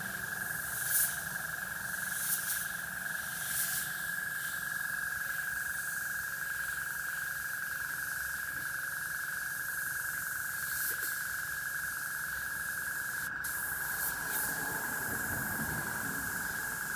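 Airbrush spraying paint in short hissing bursts, several in the first few seconds and a couple more near the end, over a steady high-pitched hum.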